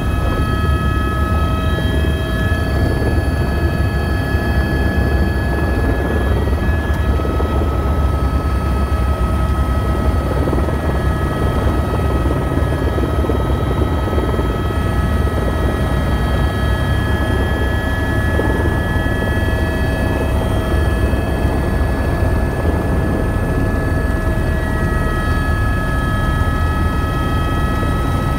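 Helicopter engine and rotor running, heard from inside the cabin: a steady heavy low rumble with several steady high whining tones on top, unchanging throughout.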